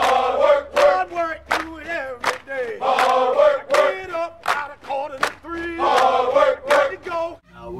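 Group of male voices chanting in unison over a steady beat of sharp hits, about one hit every three-quarters of a second; it starts abruptly and stops just before the end.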